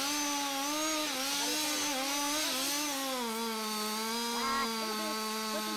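Chainsaw engine running under load as it cuts into the trunk of a large tree. Its pitch wavers for the first three seconds or so, then settles to a steady, slightly lower pitch.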